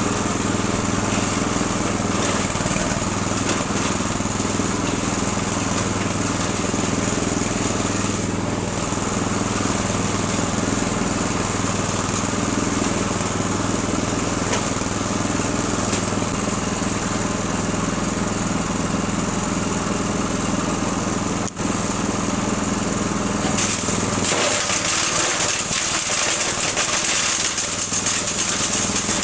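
Breckner wood chipper with its 6.5 hp engine running steadily at speed. About 24 s in, the sound shifts: the low engine note drops back and a brighter, hissing noise grows louder.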